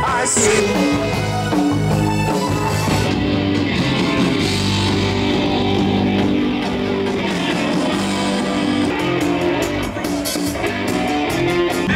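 Live rock band playing on an outdoor stage, amplified through PA speakers, with electric guitar.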